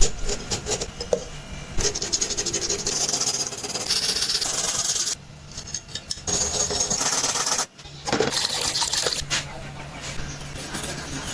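Rapid scraping and rubbing on metal in several separate stretches, with abrupt cuts between them: rust being scrubbed off an old metal lantern.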